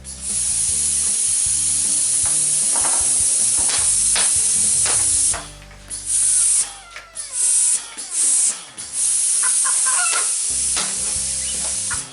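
Pneumatic caulking gun hissing as compressed air escapes around the glue tube, which the user puts down to the tube not being sealed in the gun. The hiss is steady for about five seconds, then cuts off and comes back in three short bursts and a longer one as the trigger is pulled and released.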